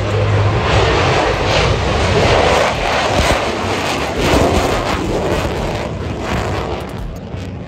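Military aircraft flying past at an airshow, a loud rushing engine noise that swells and then fades toward the end.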